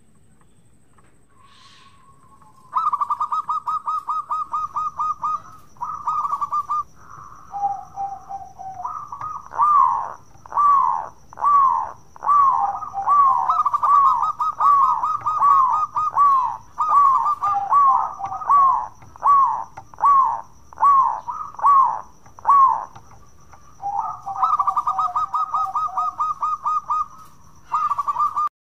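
Zebra dove (perkutut) cooing, starting about three seconds in. Rapid trilled runs of short staccato coos alternate with a long series of separate, downward-sliding coos, one or two a second.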